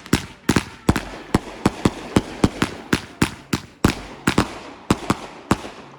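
A rapid, steady string of firework bangs, about three a second, each a sharp crack with a short tail.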